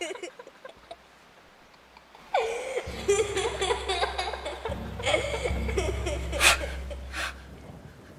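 A young girl and a woman laughing, starting about two seconds in, with low, sustained music notes underneath.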